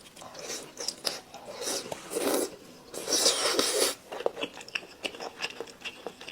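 Close-up eating sounds: biting and chewing food, with a louder noisy stretch about two seconds in and a longer one around three seconds in, then quieter, wet mouth clicks.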